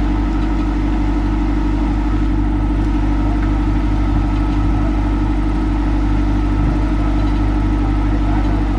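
An engine running steadily at idle: a loud, even hum that holds the same pitch and level throughout.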